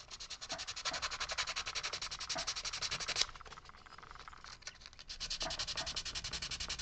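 Sandpaper rubbed quickly back and forth over a small carved wooden piece, smoothing and rounding its edge, in quick even strokes. It runs for about three seconds, pauses, and starts again about five seconds in.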